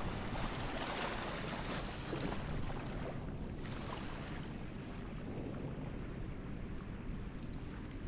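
Small waves running up the beach and washing back, a surge of surf hiss about a second in and another smaller one near the middle, over a low wind rumble on the microphone.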